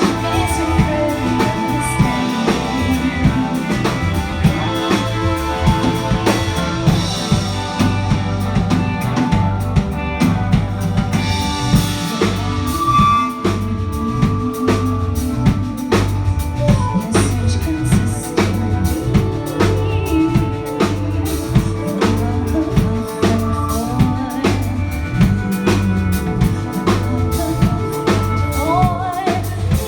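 A live band playing, with the drum kit keeping a steady beat on bass drum and snare under sustained pitched instruments.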